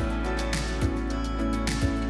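Background music with a steady beat: regular kick drum strikes and cymbal ticks over sustained tones.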